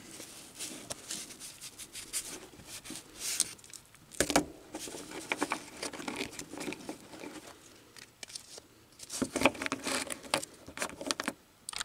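Baseball cards and their cardboard box being handled: cards sliding and scraping against each other and the box, with light clicks throughout, a louder knock about four seconds in, and a quick flurry of rustling near the end.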